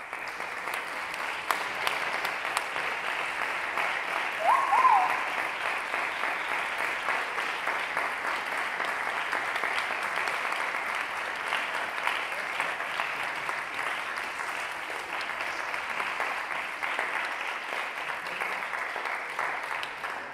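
A concert audience applauding steadily, with a short pitched call rising above the clapping about five seconds in; the applause fades away at the end.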